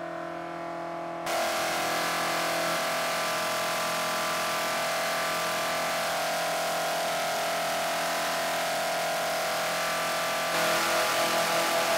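Cosworth BDG 2-litre twin-cam four-cylinder racing engine with Lucas mechanical fuel injection running on a dynamometer, held at a steady speed. It gets suddenly louder about a second in, and louder again with a slight wavering near the end.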